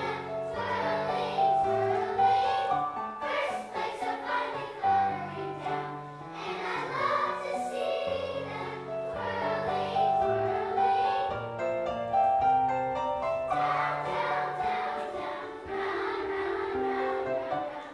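Children's choir of third and fourth graders singing a holiday carol, with a brief break in the voices about twelve seconds in.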